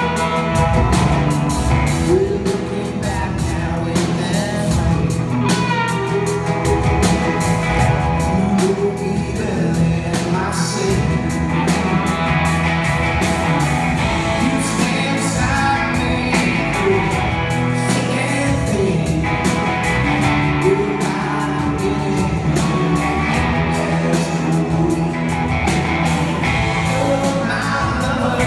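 A live rock song: a male lead singer over electric guitar and drums, played loud.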